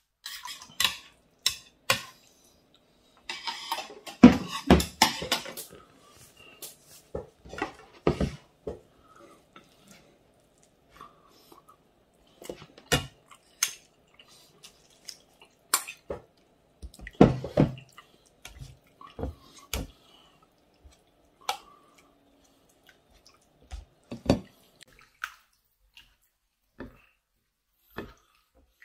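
Scattered clinks and taps of metal chopsticks and a spoon against ceramic bowls, with oxtail broth dripping and splashing as the soup is served into a bowl.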